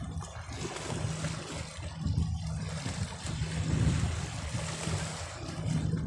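A boat engine drones steadily and low under small waves washing and hissing over shore rocks.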